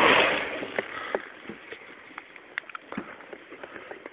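A loud splash and rush of river water against a raft in the first half-second, fading into quieter water lapping and gurgling, with scattered light knocks and clicks.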